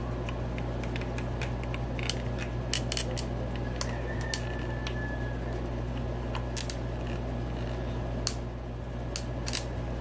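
Small sharp plastic clicks and taps at irregular intervals as flathead screwdrivers pry at the stiff latching tabs of a Yamaha YZ250F fuel pump assembly, over a steady low hum.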